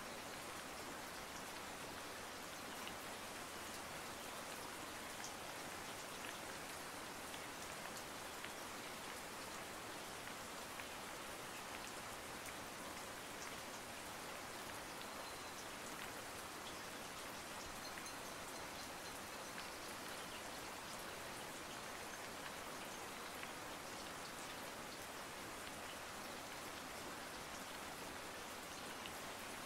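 Steady rain, an even hiss with faint scattered drop ticks.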